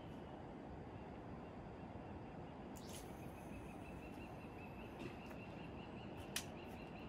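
Low, steady rush of a swollen river's flowing water. A faint high trill joins about three seconds in, and there are a few sharp clicks, the loudest about six seconds in.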